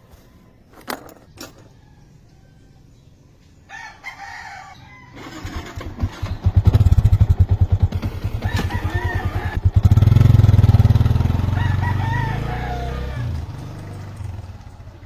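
Yamaha Sniper 150's fuel-injected single-cylinder four-stroke engine running through its exhaust. It is blipped in quick revs and then given a longer rev about halfway through that slowly falls back. A rooster crows several times in the background, first just before the engine comes up.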